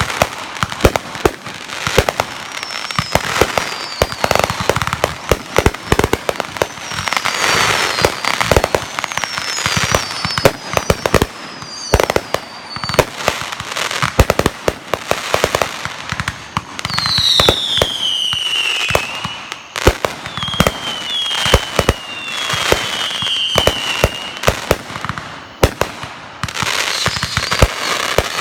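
Fireworks going off: a rapid, irregular string of sharp bangs and crackles. In the second half, several whistling fireworks give falling whistles over the bangs.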